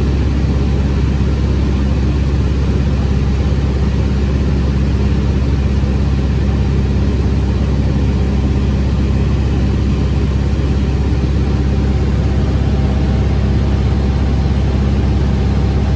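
Light spotter plane's engine running steadily, a constant low engine hum heard from on board the aircraft.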